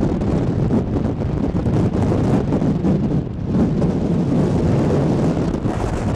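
Wind buffeting the camera microphone, with the rumble of a moving vehicle underneath, easing for a moment about three seconds in.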